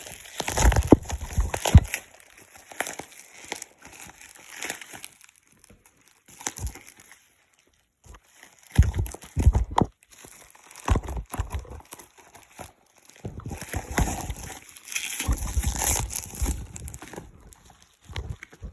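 Packaging being handled during an unboxing: crinkling and rustling in irregular bursts, mixed with handling knocks, with short pauses between.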